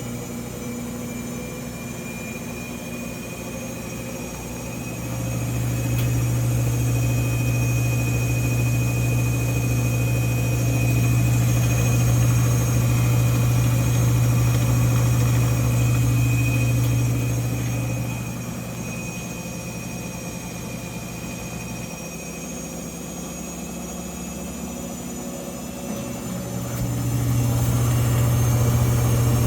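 GE GFW850SPNRS front-load washer in its spin cycle: a loud low drone with a steady high-pitched squeal running over it. The drone swells about five seconds in, eases off near the middle, and rises again near the end. Service technicians say this sound is normal for this model, though the owner says it sounds broken.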